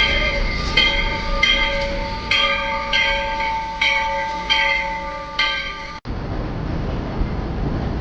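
A locomotive bell ringing steadily, about one stroke every 0.8 seconds, each stroke ringing on. About six seconds in it cuts off abruptly and gives way to the steady rumble of the moving train.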